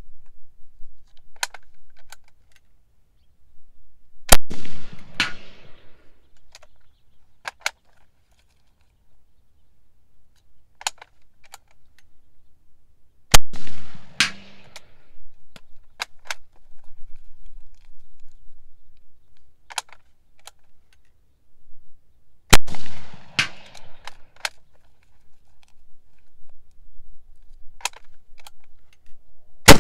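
Black-powder Dreyse needle-rifle shots, one about every nine seconds: three loud cracks, each trailing off in a long echo, and a fourth right at the end. Quieter metallic clicks between the shots come from reloading.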